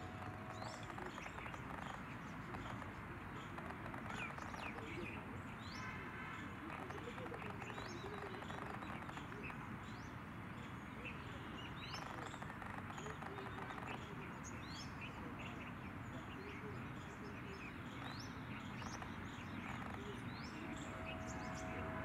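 Small birds chirping: many short, high calls scattered throughout, over a steady outdoor background hiss.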